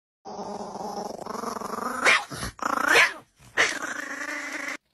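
A domestic cat growling steadily as a hand touches it, breaking into louder wavering yowls about two, three and three and a half seconds in.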